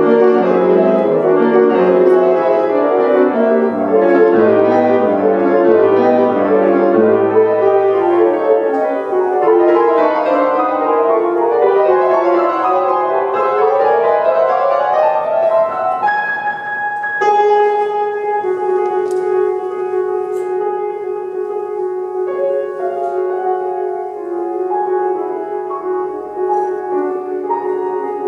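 Solo Yamaha grand piano playing classical music: rapid, dense running figures for the first half, then about halfway through slower, held notes left ringing.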